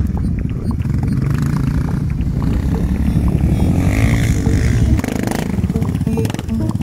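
Quad bike's single-cylinder engine running as it is ridden, its note rising and falling with the throttle and dipping briefly about five seconds in.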